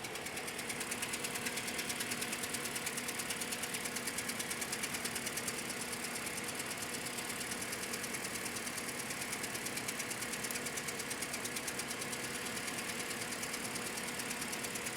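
2010 Scion xD's 1.8-litre four-cylinder engine idling rough with a fast, even ticking. It is misfiring on cylinders 3 and 4.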